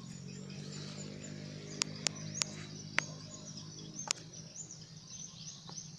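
Small birds chirping faintly in wetland ambience, with a handful of sharp clicks about two to four seconds in. A faint steady low hum runs underneath.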